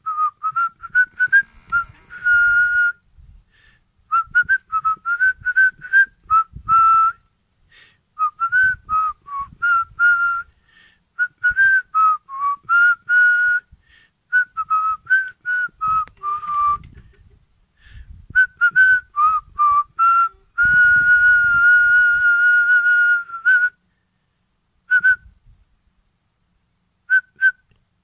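A person whistling a wandering, tuneless melody close to the microphone: short notes that step up and down, with a long held note about three-quarters of the way through, then only a few brief notes near the end.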